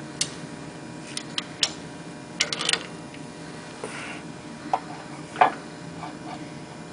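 Scattered sharp metallic clicks and knocks at uneven intervals from shop press work on a subframe bushing, the loudest about five and a half seconds in, over a steady low hum.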